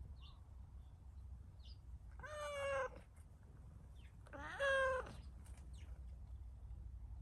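Cat meowing twice: two drawn-out meows about two seconds apart, the second one louder.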